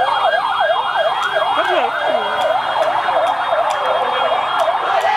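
Vehicle siren sounding a fast up-and-down yelp, about three or four sweeps a second, growing less regular after about two seconds, with voices underneath.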